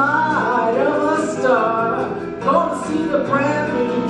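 Music with voices singing a melody in long held notes that bend in pitch.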